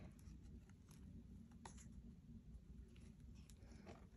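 Near silence: low room hum with a few faint ticks of paper as a sketchbook's pages are handled.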